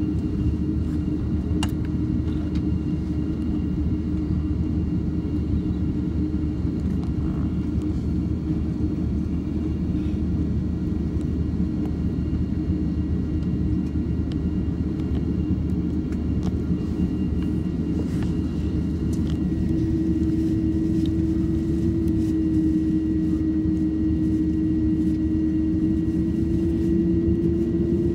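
Airbus A330-300 heard from inside the cabin while taxiing: a steady low engine rumble, with an engine tone that grows stronger and rises slightly about two-thirds of the way in.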